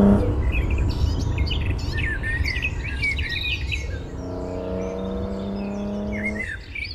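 Small birds chirping and trilling over a low steady rumble. A steady low drone with overtones joins about four seconds in and cuts off suddenly before the end.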